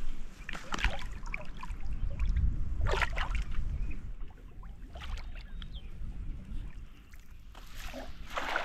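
Water splashing and sloshing in several short bursts as someone wades and handles a cast net in shallow sea water.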